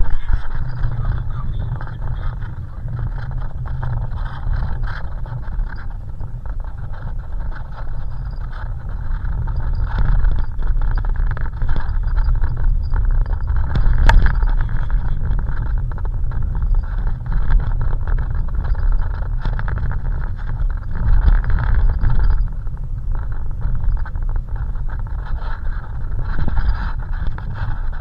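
Boat motor running steadily underway, a continuous low rumble with a noisy hiss above it; a single sharp click about halfway through.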